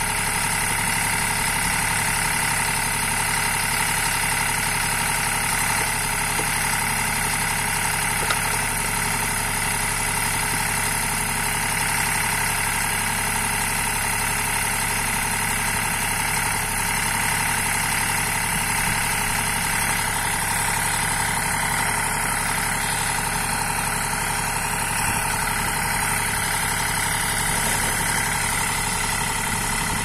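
Eicher 485 tractor's diesel engine running steadily at an even speed, powering the hydraulics of a tractor-mounted backhoe while it digs.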